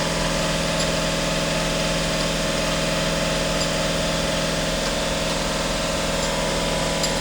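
A machine running steadily with an even, unbroken hum, like an engine or motor at idle.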